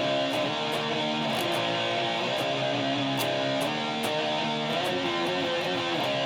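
Guitar playing part of a heavy metal and rock medley: held chords and notes that change about once a second, at a steady level.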